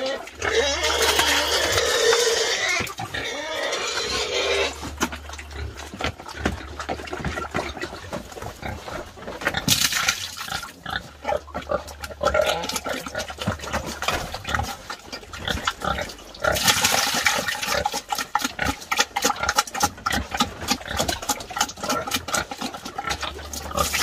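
Pigs squealing in several loud bursts, with grunting and a dense run of short clicks and smacks in between.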